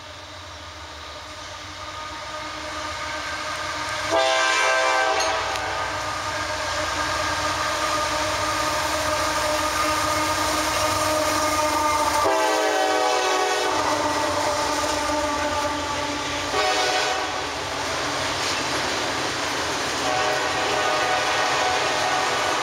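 Diesel locomotive air horn blowing repeatedly as a train approaches and grows louder: long blasts, a short one about three-quarters of the way through, then another long one, under the rumble of the train.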